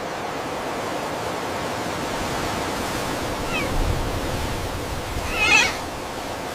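Steady rushing noise like wind or surf, with a faint short call at about three and a half seconds and a louder, ragged animal call about half a second long near the end.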